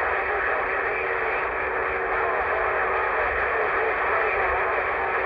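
CB radio receiver hissing on an open channel: steady, narrow-band static with faint, garbled voices of distant stations under it.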